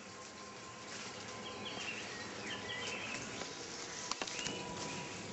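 Steady outdoor hiss with a few faint high chirps about two seconds in, and a couple of sharp camera-handling clicks about four seconds in as the camcorder is swung down.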